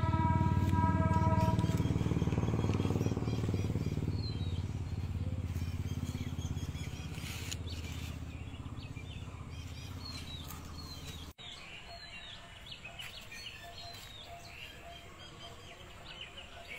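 A motor engine's low rumble, fading steadily over about ten seconds, with a steady tone that stops about two seconds in. Small birds chirp throughout.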